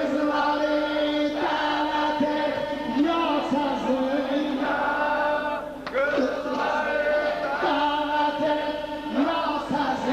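Men's voices chanting together in a religious chant, singing long held notes in phrases that break every second or two.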